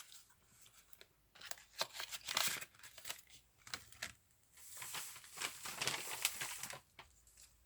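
Packaging being handled and opened: irregular crinkling and tearing in two stretches, a quieter gap between them.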